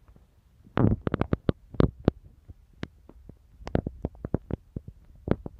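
Handling noise from a camera being carried with its lens covered: an irregular run of sharp clicks and knocks against the microphone, with heavier thumps about a second and two seconds in.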